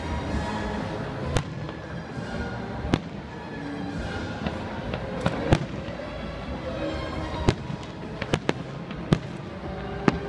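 Aerial fireworks shells bursting overhead: about eight sharp bangs spaced a second or so apart, with music playing steadily underneath.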